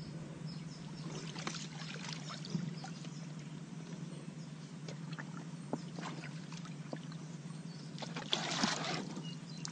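Faint water sounds of a bucket being moved and dipped in river water: small trickles and splashes, with a short louder splash or pour about eight seconds in, over a steady low hum.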